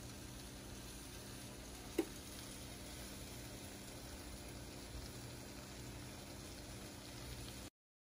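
Lemon-butter caper sauce sizzling and bubbling faintly and steadily in a cast iron skillet, with a single sharp click about two seconds in. The sound stops abruptly near the end.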